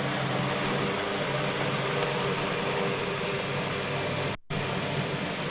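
Steady hiss with a low hum underneath, broken by a moment of dead silence about four and a half seconds in.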